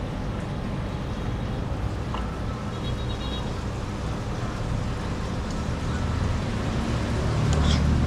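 Steady low rumble and hiss, like traffic noise, growing a little louder near the end, with a faint short high tone about three seconds in.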